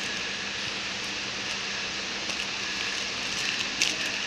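Packing machine running: a steady hiss over a low hum, with light clicks and one sharper click near the end.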